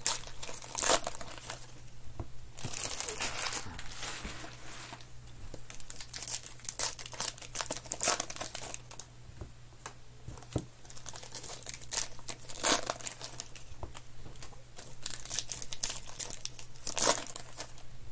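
Crinkly wrappers of Topps Heritage baseball card packs being torn open by hand and the cards handled: irregular crinkling, with a few louder sharp rips scattered through it.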